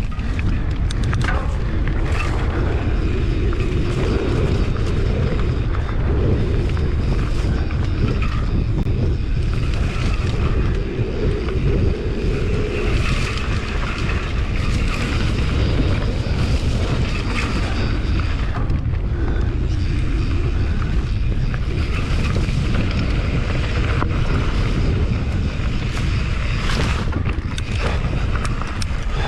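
Steady wind rumble buffeting an action camera's microphone while riding a trail at speed, with scattered rattles and knocks from the ride.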